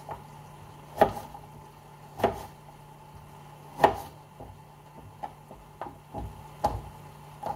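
Kitchen knife slicing an eggplant and knocking down onto a wooden cutting board: three loud separate knocks about a second and a half apart, then lighter, quicker taps in the second half.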